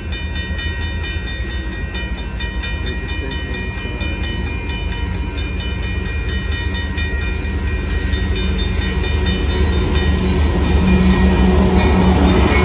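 Union Pacific diesel freight locomotives approaching, a deep engine rumble growing steadily louder. Over it, a grade-crossing bell rings in rapid, even strokes.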